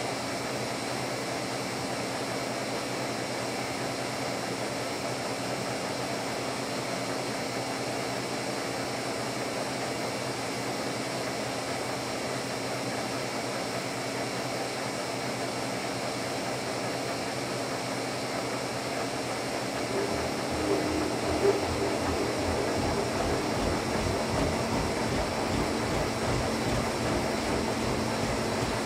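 Lucas 41 horizontal boring mill running with a steady machine hum. About twenty seconds in the sound gets louder and a fast, low pulsing sets in: the boring tool cutting the cast steel coupler.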